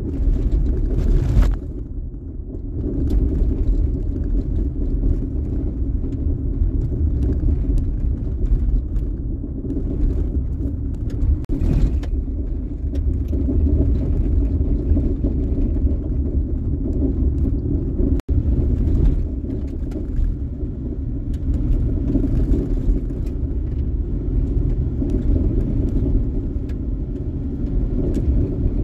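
Steady low rumble of a vehicle driving on a gravel road, heard inside the cabin: engine and tyres on loose gravel, with a couple of brief louder spells of noise.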